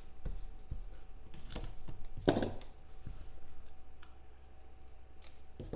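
Utility knife slitting the seal of a cardboard trading-card box, then the box lid being slid open by hand: scattered light clicks and scrapes, with one louder rustle about two seconds in.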